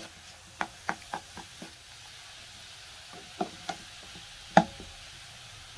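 A utensil knocking and clinking against a pan, in a few scattered strikes with the loudest about four and a half seconds in, while chopped onion, carrot and green squash (zucchini) cook with a faint steady sizzle.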